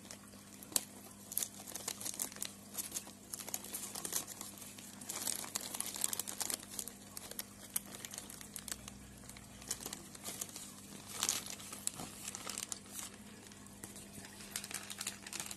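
Thin plastic bag crinkling and rustling in irregular crackles as hands work its rubber band loose and handle it.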